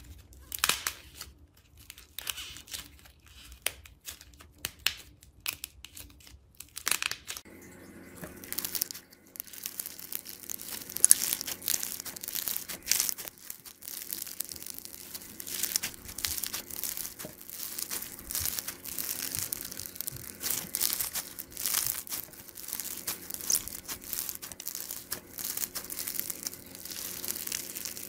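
Hands squishing slime: a few sparse sticky pops and crackles at first, then, from about seven seconds in, floam (slime packed with tiny foam beads) kneaded and stretched, giving dense, continuous crackling and popping.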